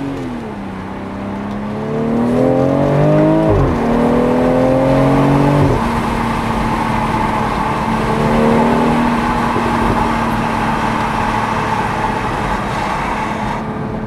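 BMW X3 M40i's turbocharged 3.0-litre straight-six accelerating hard, its exhaust note rising in pitch through two gears with a sudden drop at each upshift, about three and a half and six seconds in. It then settles to a steady cruising note over steady road and wind noise, heard from inside the cabin.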